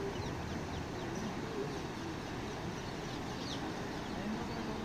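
Outdoor ambience: a steady background of noise with scattered short, high bird chirps and faint distant voices.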